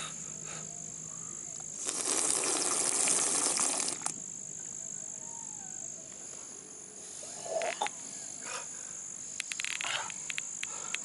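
A person slurping muddy water from a puddle, a loud noisy rush lasting about two seconds, over a steady high chirring of insects.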